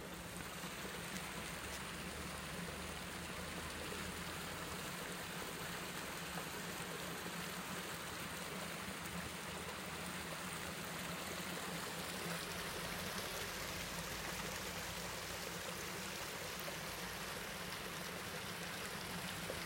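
Water of a shallow stream running steadily over rocks, a constant even rush of noise.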